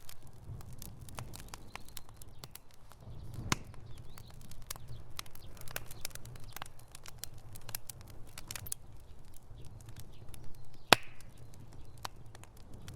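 Wood fire burning in a fireplace, crackling with frequent small pops over a low rumble of flames. There are two sharper, louder snaps, about three and a half seconds in and near eleven seconds, the later one the loudest.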